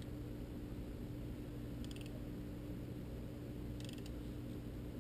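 Wrench tightening the oil filter cover bolt on a Ninja 250: two short runs of rapid metallic clicks about two seconds apart, over a steady low hum.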